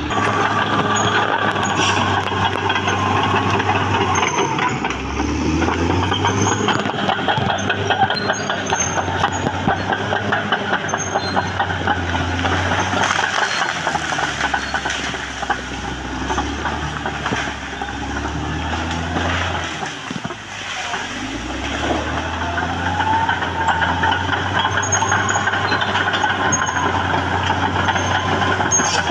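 Caterpillar D6R XL crawler dozer's diesel engine working under load with its tracks clattering, the engine pitch rising and falling a few times as it pushes through brush.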